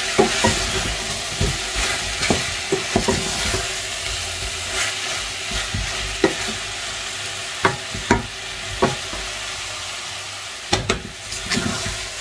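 Meat, onions and tomato paste sizzling in a pot while a spoon stirs and scrapes it, with irregular knocks of the spoon against the pot.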